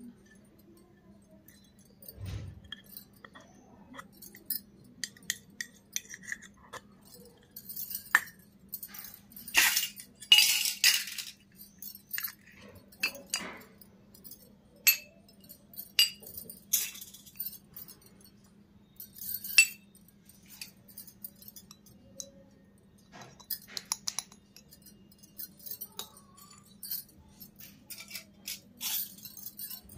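Miniature stainless-steel bowls and cups clinking against each other and being set down on a concrete floor. Scattered sharp metallic clinks and taps, busiest and loudest about ten seconds in.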